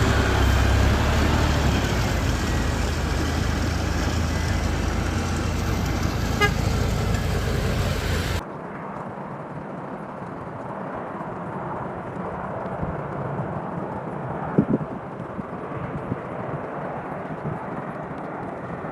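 Snowy street traffic noise with a strong low rumble and a brief car horn toot about six seconds in. About eight seconds in it cuts abruptly to a quieter, duller background noise with a few knocks.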